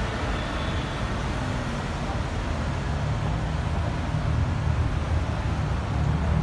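City street traffic: cars driving past, a steady deep rumble of engines and tyres that grows a little louder near the end.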